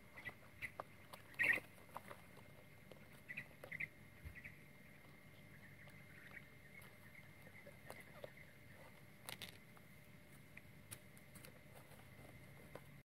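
Soft crinkling, scraping and small sharp clicks of banana-trunk sheath being folded and cut by hand, in scattered short bursts, the loudest about a second and a half in and again about nine seconds in.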